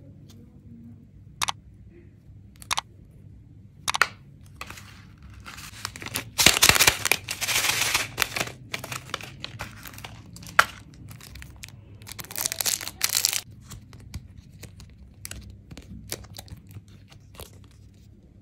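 Plastic candy packaging handled and opened: a few sharp plastic clicks, then about two seconds of loud crinkling and tearing of a plastic wrapper about six and a half seconds in, and another burst of crinkling around twelve seconds in, with scattered clicks after.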